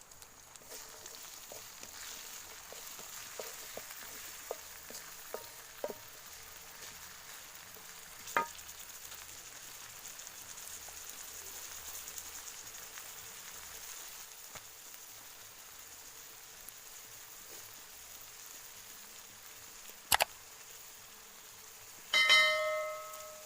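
Catfish frying in a pan, the oil sizzling steadily, with a few light clinks early on. Near the end a utensil strikes the metal pan with a sharp, ringing clang.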